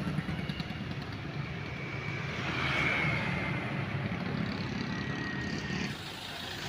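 Motorcycles and scooters passing by on a town street. Their engines hum steadily, and one grows loudest as it goes by about halfway through.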